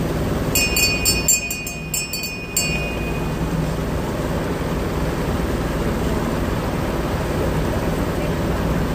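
Steady low rumble of a riverboat running under way, engine and water noise together. About half a second in, a short run of sharp high clicks with a thin high tone lasts about two seconds.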